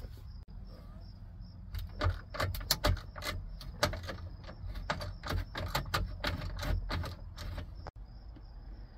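Hand ratchet with an extension clicking in short uneven runs as it backs out the 7 mm screws that hold a car radio in the dashboard. The clicks start about two seconds in and stop shortly before the end.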